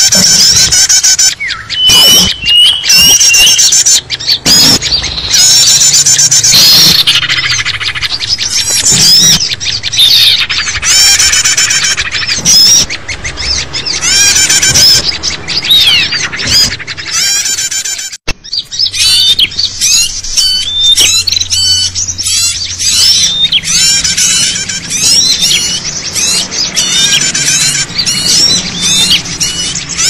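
A loud, dense chatter of many small songbirds calling over one another, with rapid chirps, trills and whistled glides. It is a mixed small-bird lure recording (suara pikat) meant to draw wild birds in. The sound dips briefly a little past halfway.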